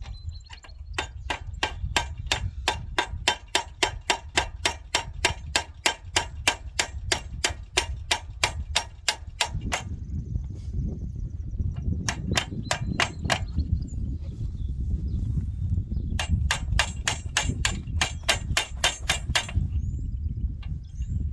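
Hammer striking metal on a John Deere 250 disc tiller in quick, steady blows, about four to five a second, in three runs: a long run from about a second in, a short one about halfway through, and another near the end.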